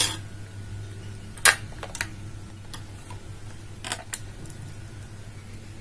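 Sharp plastic clicks and clatter of AA batteries being taken out of the battery compartment of a Sinocare BA-801 digital blood pressure monitor, then of its adapter cable being handled. There are about half a dozen clicks, the loudest at the start and about a second and a half in, over a steady low hum.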